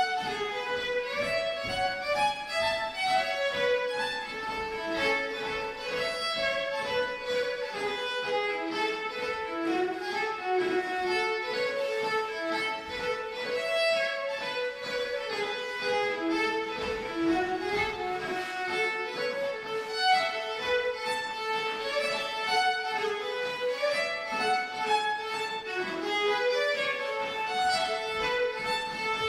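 Solo fiddle playing a Scottish strathspey dance tune, an unbroken run of bowed melody notes.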